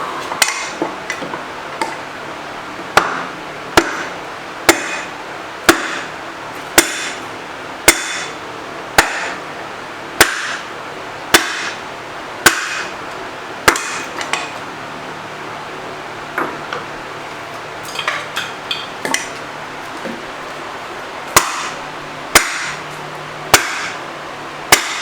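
Four-pound sledgehammer driving a wooden 4x4 against the rusted-in tailstock of a Monarch 10EE lathe to shift it along the ways: heavy blows about once a second, a run of lighter, quicker hits a little past the middle, then heavy blows again.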